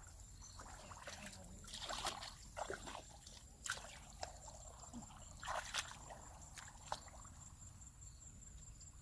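Water sloshing and trickling in short, irregular splashes, several spread through a few seconds, fairly faint.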